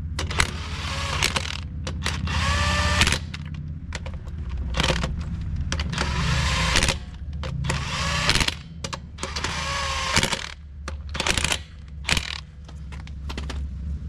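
Power tool running the lug nuts onto the wheel studs in repeated short bursts of about a second each, its motor whine rising in pitch in some bursts, snugging the nuts down rather than torquing them.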